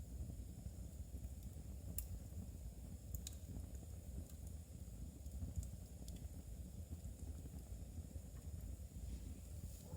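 Wood fire burning in a fireplace: a low steady rumble with a few sharp, scattered crackles.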